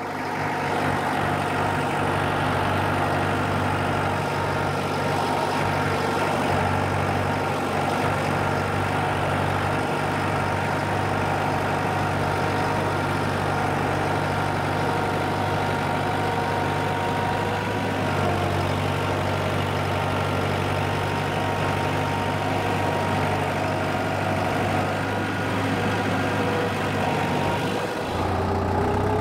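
Farm tractor engine running steadily at a low, even idle.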